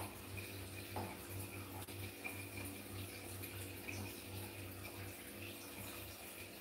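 Faint water running in a small tiled bathroom, over a low pulsing hum.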